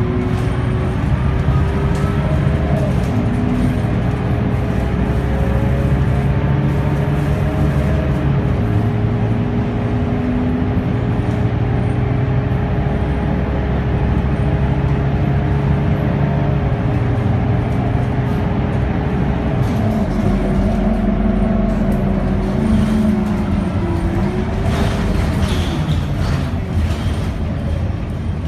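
Scania K230UB city bus with its Scania DC9 five-cylinder diesel and ZF Ecomat automatic gearbox, heard from inside the passenger cabin while driving. A steady whining tone sits over the engine note, and both shift in pitch about twenty seconds in and again a few seconds later, as the bus changes speed.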